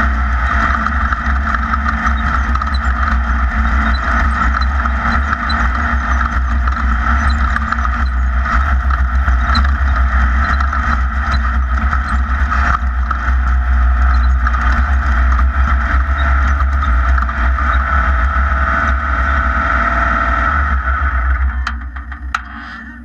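Class 1600 off-road race car's air-cooled VW engine running steadily, with a heavy low rumble. The noise drops away sharply near the end.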